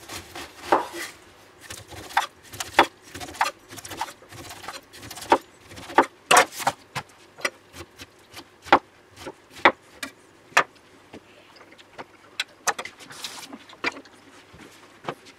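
Chef's knife slicing the rind off a fresh pineapple on a wooden cutting board: irregular sharp cuts and knocks as the blade goes through the rind and strikes the board, about one or two a second.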